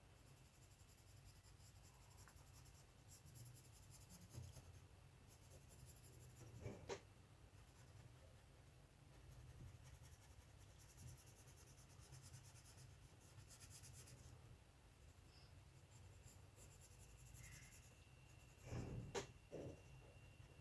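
Faint scratching of a colored pencil on paper, in intermittent stretches of short shading strokes, with a few louder soft knocks and rustles near the end.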